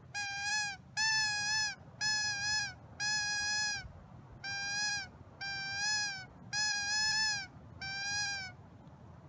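Mouth-blown predator distress call used as a coyote call: eight high-pitched squealing notes, each under a second long, about one a second, each note dipping slightly in pitch at its end.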